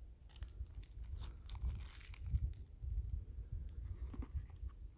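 Rustling and crinkling of small packaging being handled, with scattered light clicks and low handling bumps.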